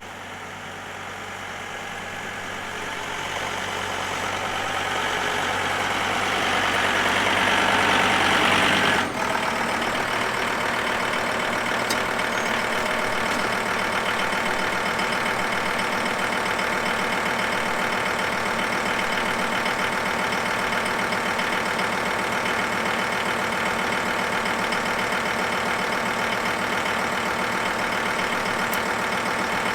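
John Deere two-wheel-drive tractor's engine running, growing steadily louder over the first nine seconds, then after a sudden change about nine seconds in, running evenly.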